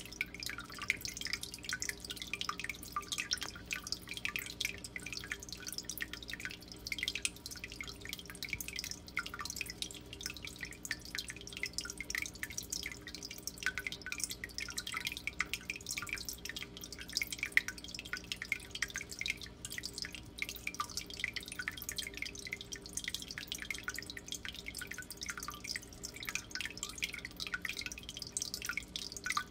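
Water in a turtle tank trickling and dripping steadily, a continuous patter of small splashes, over a low steady hum.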